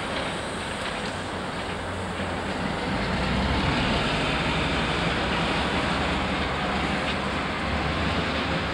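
Class 08 diesel shunter running as it moves along the tracks: a low engine rumble that grows louder about three seconds in, over steady background noise.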